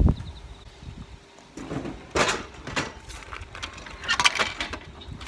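A few scattered clinks, clicks and rattles of coins and hands at a drink vending machine.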